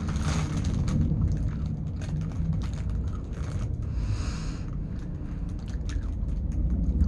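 Chips being chewed close to the microphone, heard as irregular crisp clicks and crackles, with a brief rustling noise about four seconds in, over a low steady rumble.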